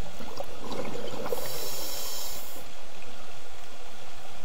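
Scuba diver breathing through a regulator, heard underwater: a hissing inhale starting about a second in and lasting just over a second, with a crackle of exhaled bubbles around it.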